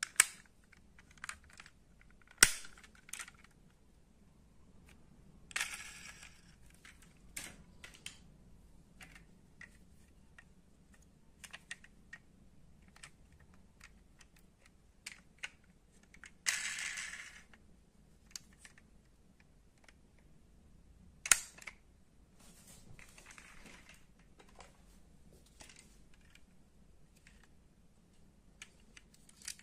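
Die-cast scale model cars being handled: scattered small clicks and taps, two of them sharp and loud, with a few short rustles of about a second each.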